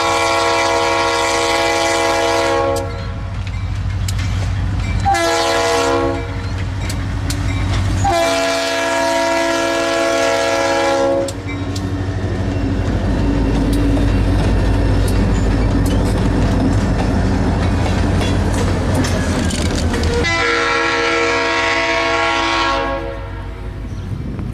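Diesel freight locomotive's multi-note air horn sounding a long blast, a short one and another long one, then one more long blast near the end. Under and between the blasts, the locomotive's engine rumbles and the freight cars' wheels clack over the rail joints as the train rolls by.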